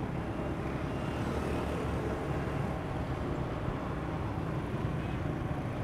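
Motorbike engine running steadily, mixed with wind rush and the hum of passing motorbike traffic on the street.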